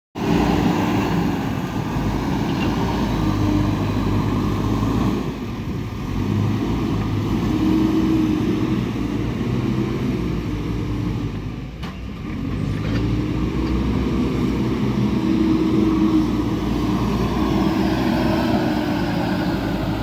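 JCB 4DX backhoe loader's diesel engine working under load, its revs rising and falling as the machine drives and scrapes mud with the front bucket, easing off briefly twice.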